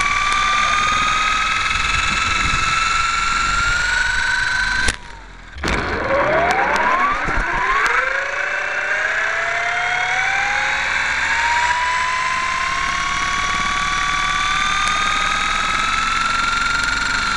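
Motor of a model Hurricane aircraft running up on the ground, its whine climbing slowly in pitch. About five seconds in it cuts out for under a second, then spools back up and keeps climbing steadily.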